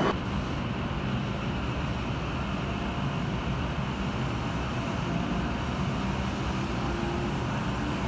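Cabin noise inside an E7/W7-series Hokuriku Shinkansen train as it pulls out of the station: a steady low rumble with a faint hum.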